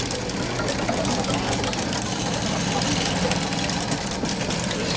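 Big-wheel lathe running: a steady mechanical rumble from the large wooden drive wheel and rope belt turning the lathe, with light knocking.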